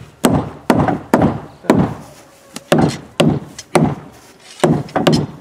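Heavy hammer blows on the wooden planking of a boat hull, about two a second, with a short pause near the end, as a plank is knocked into place.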